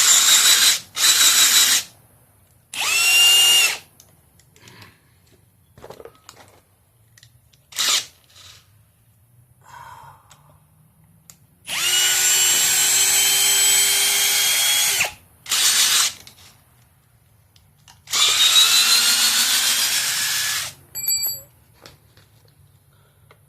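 Cordless brushless hammer drills driving long TimberLOK structural screws into timber, in several trigger pulls. The motor whine climbs in pitch through each run, and the longest runs last about three seconds, one near the middle and one shortly after.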